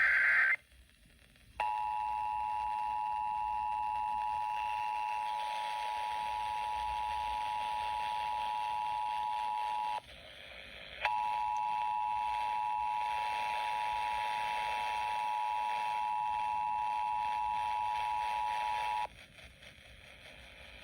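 Emergency Alert System two-tone attention signal, two steady tones (853 and 960 Hz) sounded together, held about eight seconds, breaking off for about a second, then sounding again for about eight seconds to herald a new warning. A short burst of warbling data tones ends just at the start.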